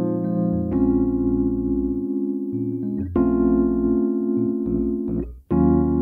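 Solo electric keyboard playing sustained chords, the chord changing about every two and a half seconds, with a brief break just before the last change.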